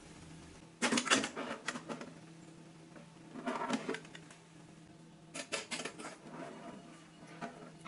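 Aluminium foil baking trays being slid out of a countertop oven, with the foil crinkling and the wire rack rattling in three short bursts, the first and loudest about a second in. A faint steady hum runs underneath.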